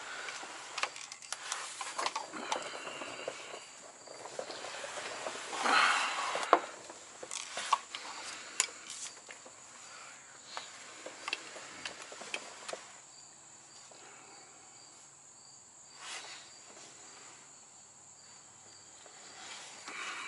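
Scattered light clicks, knocks and rustles of someone moving about and handling things under a truck, over a faint, steady high-pitched whine. The handling noises thin out in the second half, where a faint high pulsing note can be heard.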